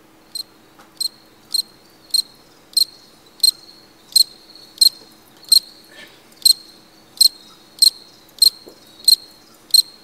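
Crickets chirping, short single chirps repeating evenly about one and a half times a second over a faint steady hum: the stock comedy 'awkward silence' sound effect.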